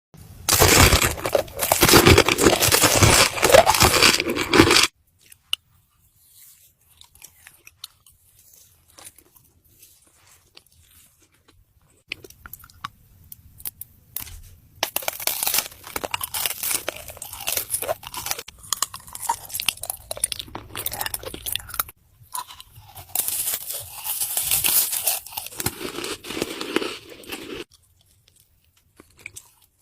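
Close-miked ASMR eating: loud crunching bites and chewing of crisp food. It comes in irregular bursts, with a long, dense crackling stretch in the first five seconds and a quieter spell of faint clicks before the crunching resumes.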